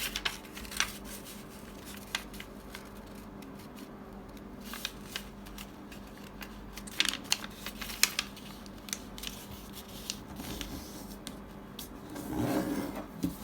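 A square sheet of origami paper being folded diagonally and creased: scattered crisp crackles and rustles of the paper, with a faint steady hum underneath.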